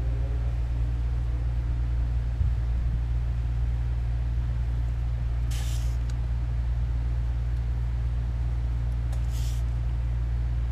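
Steady low background hum, with two short scratches of a pen drawing lines on paper, one about halfway through and one near the end.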